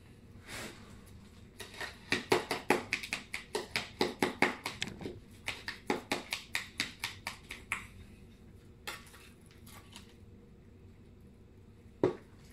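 Metal spoon tapping and scraping against a plastic bowl as wet cat food is broken up: a quick run of sharp clicks, several a second, for about six seconds, then a few scattered taps and one louder tap near the end.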